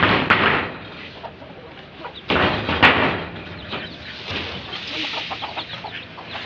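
Chickens clucking, with two loud bursts of rustling and scraping as a cloth cover and bricks are pulled off a corrugated sheet roof: one at the start and one about two and a half seconds in.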